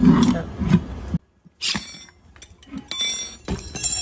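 Steel tyre levers knocking and clinking against the rim of an electric motorcycle's hub-motor wheel while a tyre is levered on. A brief dropout comes about a second in, followed by scattered sharp metallic clinks and knocks.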